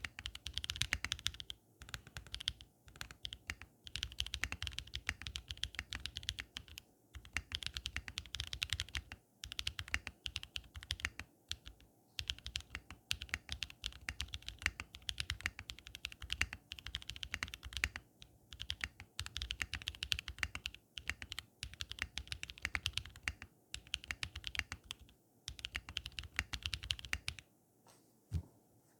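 Typing on a custom mechanical keyboard with lubed Everglide Dark Jade (Moyu Black) linear switches, an FR4 plate and PBT keycaps: quick runs of key clacks with brief pauses, stopping a second or so before the end.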